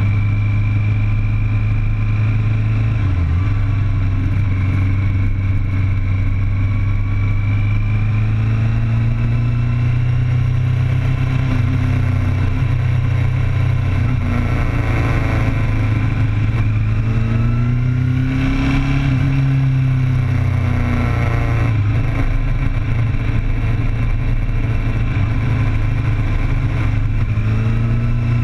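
Sport motorcycle heard from its own onboard camera at speed: a steady, loud rush of wind and engine, with the engine note rising and falling as the rider works the throttle through the curves, most clearly about halfway through.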